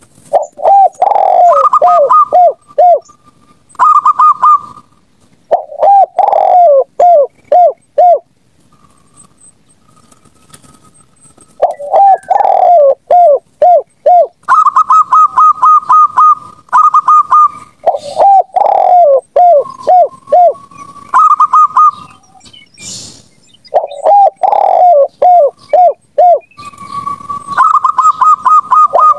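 Zebra doves and spotted doves cooing in turn, as in a bird-lure recording. The calls are repeated phrases of short coos every few seconds: a lower series of several falling notes, and a higher, quicker run of notes.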